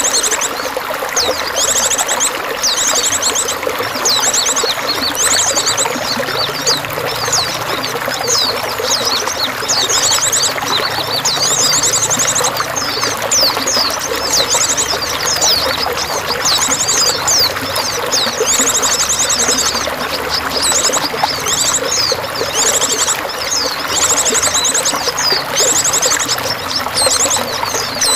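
Running water pouring and trickling steadily, with small songbirds chirping over it. Rapid high trills about a second long recur every second or two, mixed with quick rising and falling chirps.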